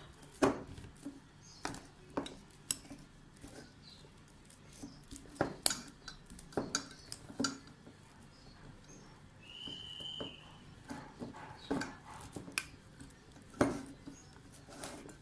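A utensil clinking and scraping against a bowl in irregular knocks as ripe bananas are mashed into a paste. A brief high tone sounds about two-thirds of the way in.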